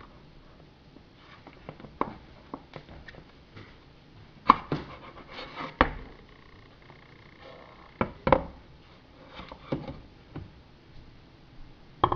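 Irregular knocks, clunks and clicks of an elliptical trainer's frame parts being handled and slid into place by hand, some sharp and loud, others faint.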